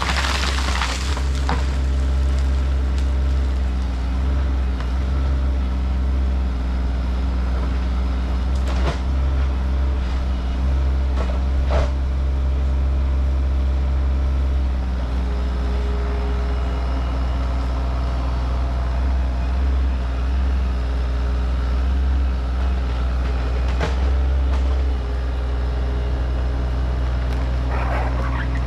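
Mini excavator's engine running steadily while it works the tree out of the ground, with a few sharp knocks over it.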